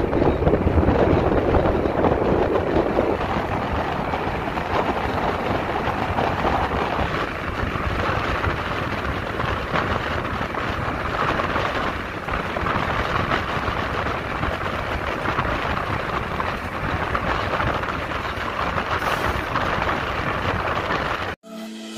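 A bus travelling at highway speed, heard from an open side window: a steady rush of wind and road noise over the engine's low drone. The sound cuts off suddenly near the end.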